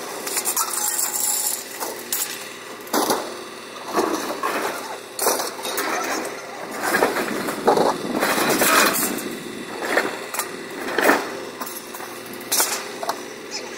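Scrap metal being unloaded by hand from a truck: irregular clanks and rattles of metal pieces hitting, about one every second or two.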